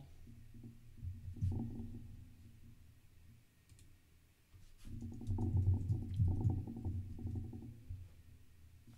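Typing on a computer keyboard: scattered key clicks, with a louder stretch of low, muffled sound from about five to seven and a half seconds in.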